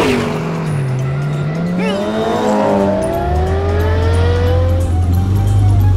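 Cartoon race-car engine sound effects: engines revving and accelerating, with several engine tones rising in pitch together, after a sudden swoop at the start. Background music comes back in about halfway through.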